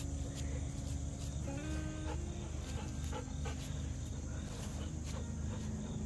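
Background music with slow, sustained notes, over a steady high chirring of crickets.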